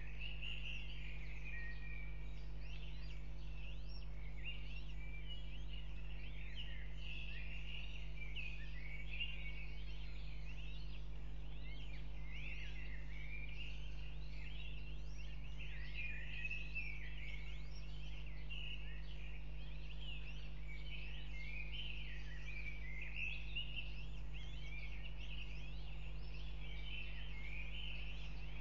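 Newly hatched northern goshawk chicks cheeping in a dense, continuous run of thin, high peeps as they beg while being fed, over a steady low hum.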